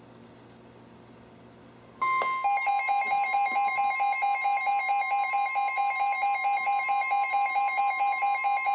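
Faint radio hiss, then about two seconds in the NOAA Weather Radio 1050 Hz warning alarm tone comes on suddenly and holds steady, the signal that a warning is being broadcast, here a flood warning. Weather radio receivers' own alert beeps pulse rapidly alongside it.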